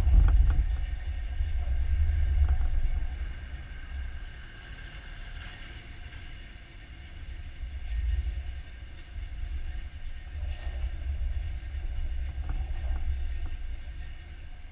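Pickup truck engine running at low speed as the truck backs slowly, with a low, uneven rumble.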